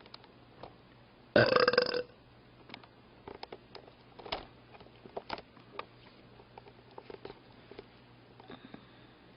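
A woman burps once, loud and about two-thirds of a second long, roughly a second and a half in. It is followed by scattered faint short clicks.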